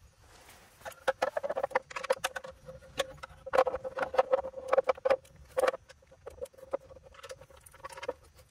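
Irregular light metal clicks and knocks as the ECM is set onto the engine's tappet-cover spacers and its single bolt is threaded in and tightened by hand tool, in clusters with short pauses.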